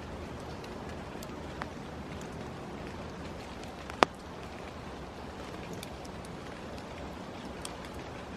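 Steady outdoor hiss with scattered light ticks, and one sharp click about four seconds in.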